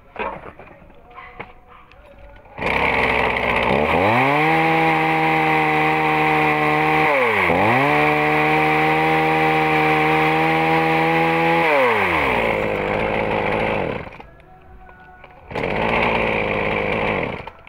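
Ryobi ES-K3500 two-stroke chainsaw engine running and revved up to a steady high speed about four seconds in. It drops and climbs back once at about halfway, then falls back toward idle at about twelve seconds. The sound cuts out for a moment near the end and returns.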